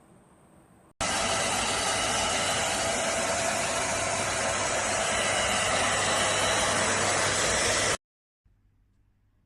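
Midea MVC-SC861 2-in-1 stick vacuum cleaner running: a loud, steady whirring rush that starts abruptly about a second in and cuts off suddenly about seven seconds later.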